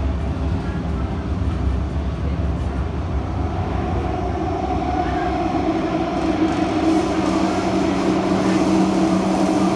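Kawasaki-CRRC Sifang CT251 metro train running between stations, heard from inside the car by the doors: a steady low rumble, with a motor whine coming in about four seconds in and growing a little louder. The rough running is put down by the uploader to flat wheels.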